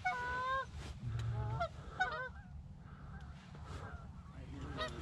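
Geese honking as a flock comes in close: one long honk at the start, then several shorter honks over the next second or two, growing faint after that.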